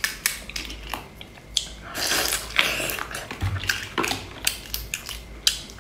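Hands cracking and pulling apart a sauce-covered lobster's shell: a run of sharp cracks and snaps with wet squelching, loudest about two to three seconds in.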